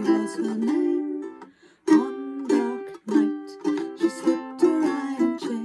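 Ukulele strummed in chords, with a woman singing along. The playing stops twice for a moment, about one and a half and about three seconds in.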